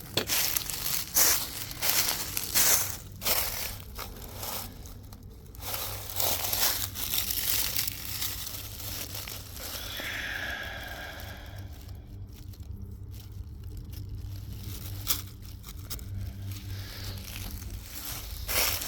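Footsteps crunching and rustling through dry leaf litter, a step every half second or so, easing off midway and picking up again near the end. A short wavering high tone sounds once about ten seconds in.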